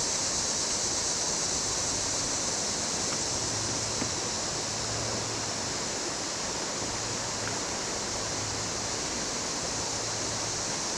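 River water rushing over shallow rapids in a steady, unbroken hiss.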